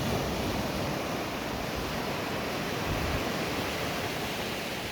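Ocean surf washing on a beach: a steady, even rush, with wind rumbling on the microphone underneath.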